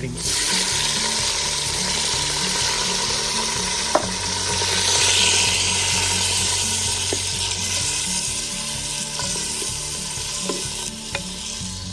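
Pork and alamang shrimp paste sizzling in hot oil in a clay pot (palayok). The sizzle starts suddenly as the shrimp paste goes in, is loudest about five seconds in, then slowly eases. There is a single sharp click about four seconds in.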